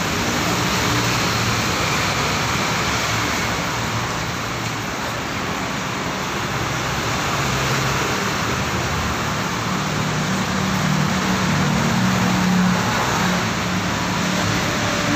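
Steady rushing noise of running water, with a faint low hum underneath.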